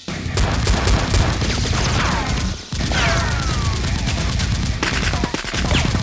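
Rapid, continuous gunfire sound effects, a fusillade of many overlapping shots. The firing breaks off briefly about halfway through, and a few falling whistling tones follow.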